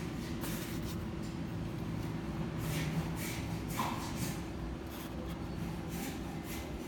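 Faint rustling and rubbing of hands working fishing line and a hook while tying a knot, a few soft brushes and scrapes, over a steady low hum.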